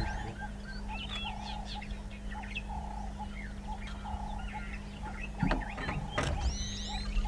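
Dawn chorus of several wild birds, with many quick chirps and whistles and one short mid-pitched call repeated about every three-quarters of a second, over a steady low hum. Two sharp knocks come near the end.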